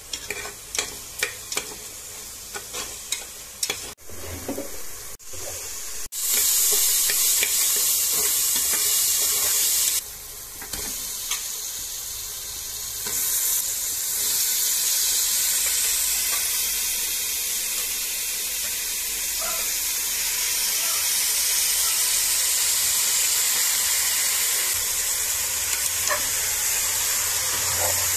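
A steel ladle clicks and scrapes against an aluminium pressure-cooker pot as masala is stirred. About six seconds in, a loud steady sizzle of frying starts. It dips briefly and then continues as raw chicken pieces are stirred into the hot masala.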